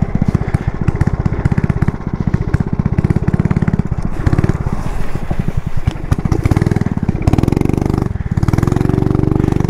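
Homebuilt go-kart's 270 cc engine running under way through an open aftermarket exhaust with no dB killer, a rapid, even pulsing. The engine note climbs about six seconds in, dips briefly near eight seconds, then holds steady.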